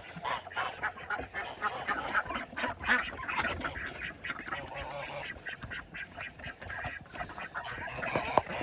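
A flock of domestic ducks quacking, with geese honking among them, in many short overlapping calls.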